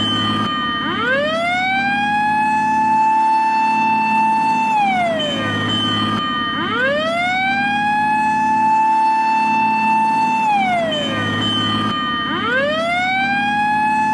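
Japanese fire engine siren wailing in a repeating cycle: the pitch rises, holds high for a few seconds, then falls, about every six seconds, over a low steady hum.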